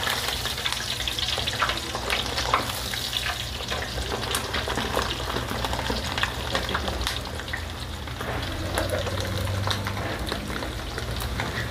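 Hot oil sizzling and crackling steadily in an electric deep fryer as pieces of chicharon bulaklak (pork mesentery) deep-fry in the wire basket, with a steady low hum underneath.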